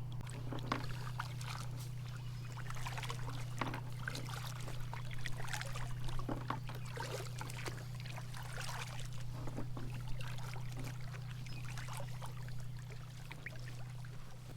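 Water splashing and trickling around a kayak on the move, in irregular bursts, over a steady low hum.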